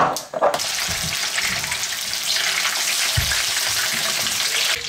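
Flour-coated rabbit pieces sizzling steadily as they shallow-fry in oil in a frying pan. The sizzle starts about half a second in, after a brief knock, and cuts off just before the end.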